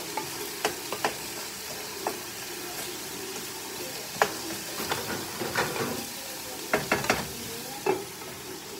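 Food sizzling and frying in a large pan while wooden spatulas stir it, with sharp knocks of wood against the pan now and then, several in quick succession about seven seconds in.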